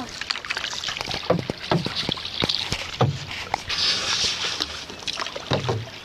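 Paddles dipping and pulling through calm lake water from a paddled boat: splashes and a few sharp knocks, with a longer wash of splashing water about four seconds in.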